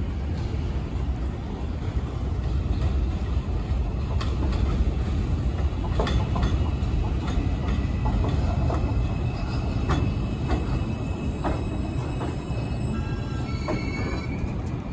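New York City subway train running through the station: a heavy steady rumble with sharp clacks of the wheels over rail joints. A thin high-pitched wheel squeal comes in near the end.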